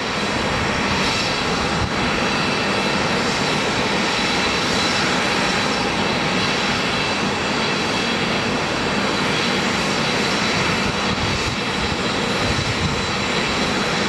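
Two JT8D turbofan engines of a Kawasaki C-1 military transport running steadily as it taxis, a constant rush with a high steady whine over it.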